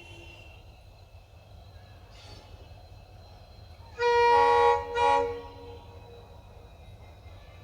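Indian Railways WDG4 diesel locomotive horn sounding twice, about four seconds in: a long blast then a short one, over a steady low engine rumble.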